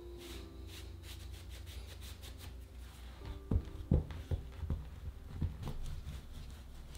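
A brush sweeps flour off folded laminated pastry dough in quick, repeated soft strokes. About three seconds in, a wooden rolling pin is set on the dough and rolled, giving several dull knocks against the dough and counter.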